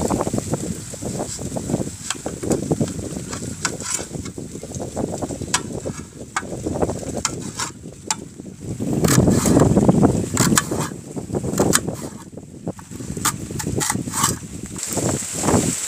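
A kitchen knife slicing through an onion, its blade clicking irregularly against a metal plate, over a fluctuating low rumble.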